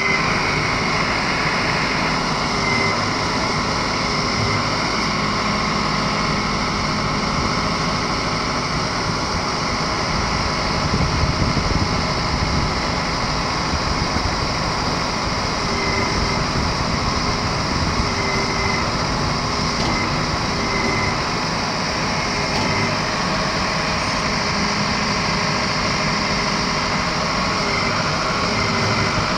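Engine of a small self-loading pan concrete mixer truck running steadily, with brief high-pitched tones coming and going over it.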